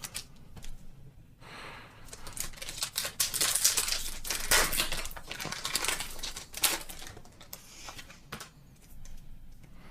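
A foil Pokémon Lost Origin booster pack wrapper crinkling and being torn open by hand, heard as a run of quick irregular crackles, loudest from about two to seven seconds in.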